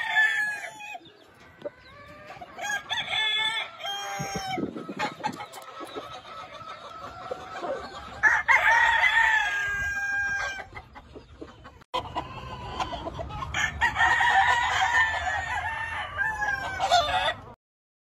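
Gamefowl roosters crowing several times, with clucking between the crows. The audio drops out briefly about two-thirds of the way through.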